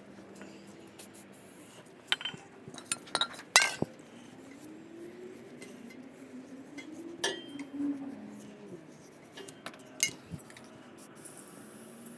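Scattered light metallic clinks and taps, with quiet handling noise, as driveshaft parts are handled and the shaft's bearing seat is wiped clean. The sharpest clink comes about three and a half seconds in.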